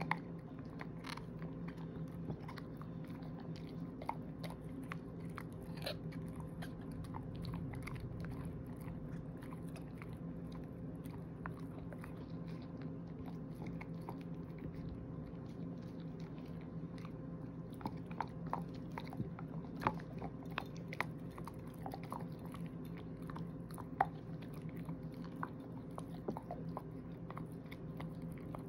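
Shepherd-mix dog gnawing and chewing a hard "everlasting" chew treat, with wet chewing and scattered crunches and clicks of teeth on the treat. The crunches come more often in the second half, with one sharp crack near the end.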